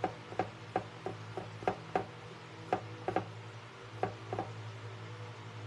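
A pen tip tapping on a painted silver tray while doodling: about a dozen light, irregular clicks, over a steady low hum.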